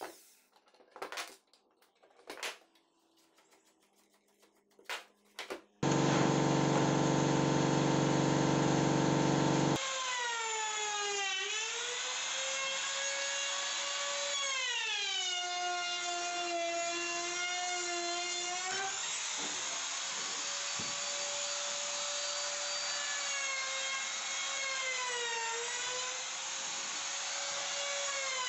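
A few light knocks, then an electric woodworking power tool starts and runs loudly and steadily for about four seconds. It then whines through the wood, its pitch sinking and recovering several times as the motor is loaded by the cut.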